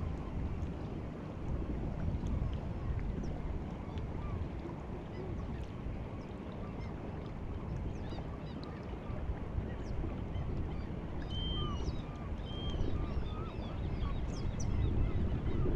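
Steady wash of sea water with the incoming tide, under many short, faint bird calls and chirps scattered through, more of them in the second half.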